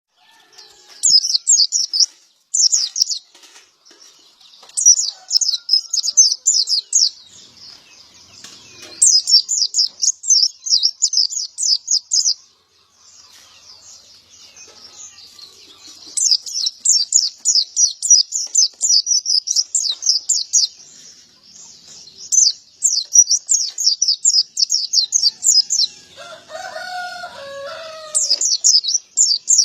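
Male pleci (white-eye, Zosterops) in full song: rapid, high twittering phrases of a few seconds each, with short pauses between. Near the end a lower, wavering call sounds briefly underneath.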